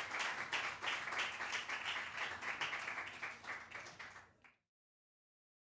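Audience applauding, dense clapping that thins out and fades, then cuts off completely about four and a half seconds in.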